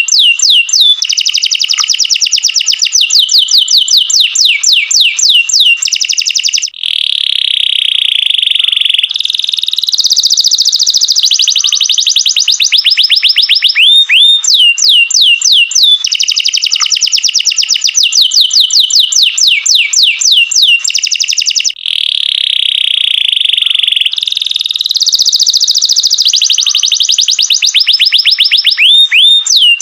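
Domestic canary singing continuously: fast runs of repeated high notes that sweep up and down, alternating with long rolling trills. The same song sequence comes round about every fifteen seconds.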